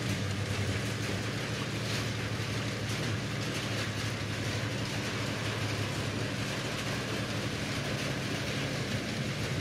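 Aquarium aeration: an air pump's steady low hum under the continuous hiss and fizz of a dense stream of air bubbles rising through the tank.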